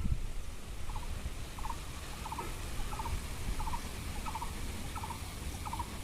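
An animal call: a short rattle of three or four quick notes, repeated about every three-quarters of a second, over a low wind rumble on the microphone.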